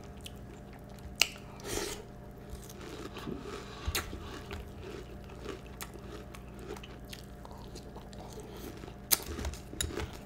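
Close-up chewing and crunching of Peeps cereal, marshmallow-flavoured loops with marshmallows, in a steady run of small crackles. Two sharp clicks stand out, about a second in and near the end.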